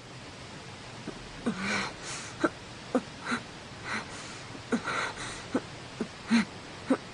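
Heavy panting of exhausted animated characters: short, sharp gasping breaths, some of them voiced, coming about one to two a second over a steady hiss.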